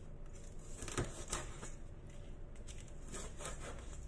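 Cleaver chopping dried chilies on a wooden cutting board: a few light, separate knocks, the sharpest about a second in and a quick cluster near the end.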